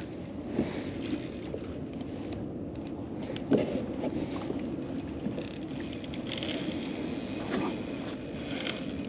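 Daiwa spinning reel being worked while a hooked fish is fought, its gears whirring steadily with small clicks and rattles.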